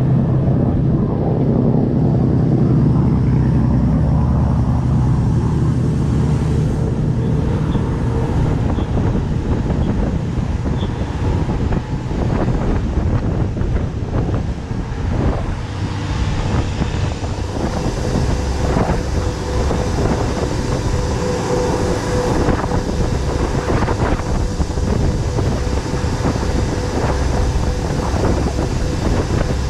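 Motorboat running fast across open water: the engine drone mixed with wind buffeting the microphone and the hull slapping and splashing through the water. The engine is loudest in the first few seconds.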